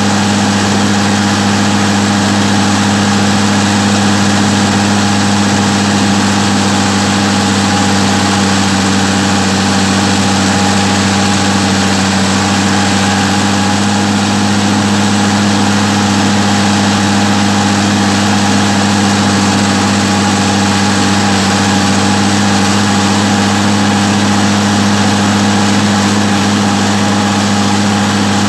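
Massey Ferguson 399 tractor's six-cylinder Perkins diesel engine running at a steady, unchanging speed as the tractor drives along, a loud constant drone.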